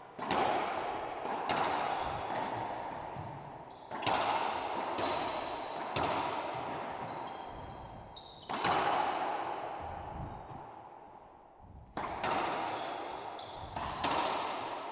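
Racquetball rally: sharp cracks of the ball off the racquets and the walls of an enclosed court, each ringing out in the court's echo, coming every one to three seconds.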